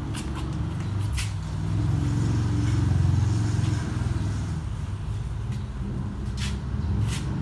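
A motor vehicle engine running, a low rumble that swells about halfway through and then eases off. A few short sharp clicks stand out over it, one early and two near the end.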